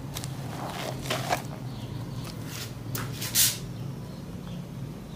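Wet squelching of a fibrous sponge full of soap lather being squeezed and worked in soapy water, in several separate squishes, the loudest about three and a half seconds in. A low steady hum runs underneath.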